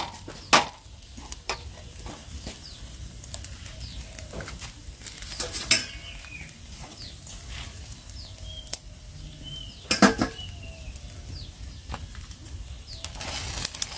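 Pig's head sizzling on a wire grill over charcoal, with a few sharp clicks of metal tongs against the grill rack.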